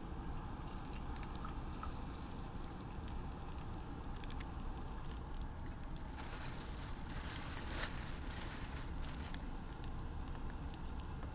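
Egg frying on a hot ridged grill pan over a gas stove: scattered crackles at first, thickening into a dense sizzle from about six to nine seconds in.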